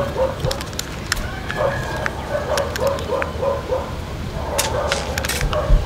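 A run of short animal calls repeating a few times a second, with sharp plastic clicks as a toy stunt ATV is turned over in the hands.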